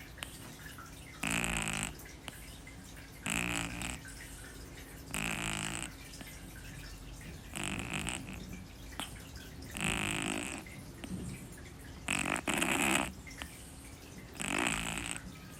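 Sleeping kitten snoring hard, a short raspy snore about every two seconds, seven in all, the sixth coming as a quick double snore.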